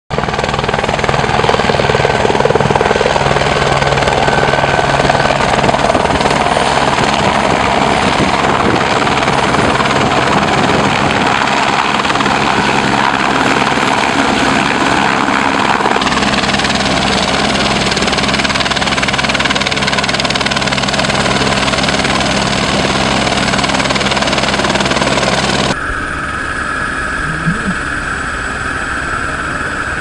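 Helicopter running steadily, its rotor and engine loud and even. Near the end the sound cuts abruptly to a quieter, thinner tone.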